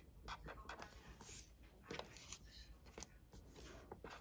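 Marker pen writing on sticker paper: faint, irregular short scratches of the tip.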